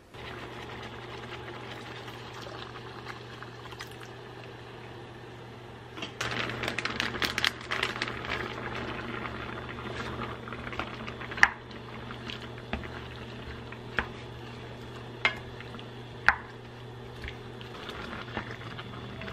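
Food bubbling in a pot on the stove over a steady low hum, denser and louder for a few seconds from about six seconds in. In the second half a utensil clinks sharply against the cookware several times, and the hum stops near the end.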